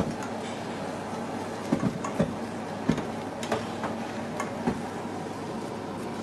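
A spatula knocking and scraping against a metal saucepan as rice for risotto is stirred, with irregular sharp taps over a steady kitchen hiss.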